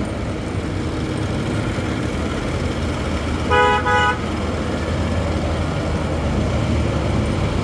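Steady road traffic noise, with a vehicle horn honking twice in quick succession a little past the middle.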